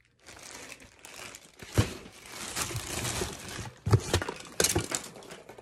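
Clear plastic bag wrapped around a kettlebell crinkling as it is handled over a cardboard box, with a few dull thumps, the loudest about four seconds in.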